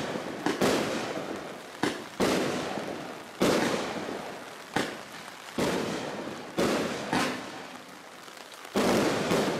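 Bright Star Thunder Bomb 100-shot 1.3G firework barrage firing its closing shots: about ten loud bangs at uneven intervals, two of them close together near the start, each followed by a fading rumble of echo.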